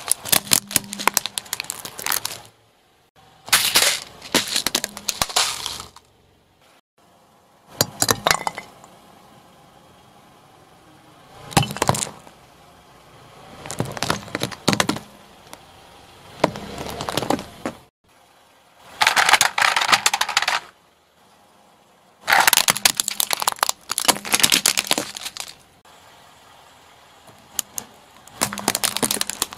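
A car tyre rolling over plastic toys and household objects and crushing them one after another. There are about nine bursts of cracking and crunching plastic, each a second or two long, with short quiet gaps between them.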